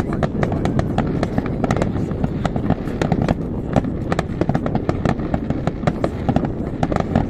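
Fireworks display: a dense, rapid run of sharp cracks and pops from many shells bursting at once, over a steady low background noise.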